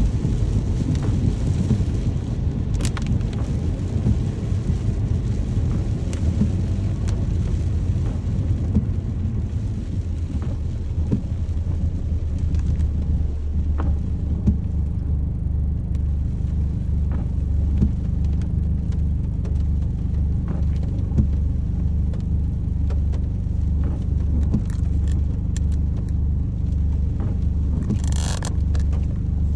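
Rain ambience dominated by a steady low rumble, with scattered small ticks and a short hiss near the end.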